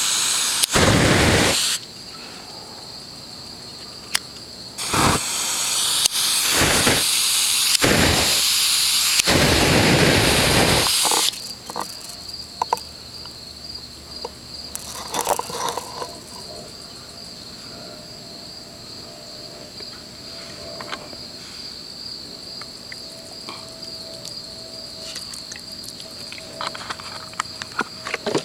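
Loud bursts of rushing hiss: a short one at the start, then a longer run lasting about six seconds that stops about eleven seconds in. Under and after them insects trill steadily on one high pulsing note, with scattered small ticks.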